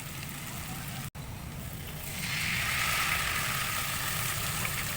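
Food sizzling in a pan, with a brief cut just after a second in and the sizzle getting louder from about two seconds in.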